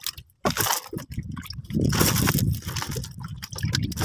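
Wet fish being handled and dropped into a woven plastic sack: irregular wet slaps and squelches with rustling of the sack, busiest about two seconds in.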